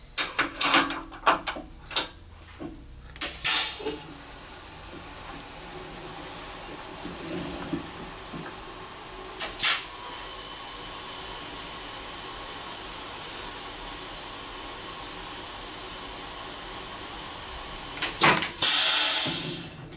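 Serdi 100 cylinder-head machine: sharp metal clicks and clinks as a cutting tool is fitted into its spindle, then a hiss that builds over a few seconds and holds steady with the spindle down in the valve guide. Near the end come more clicks and a louder burst of hiss that cuts off suddenly.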